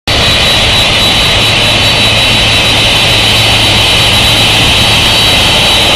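Jet engines of a Boeing 747-400 freighter running as it taxis. A loud, steady high whine sits over a low hum.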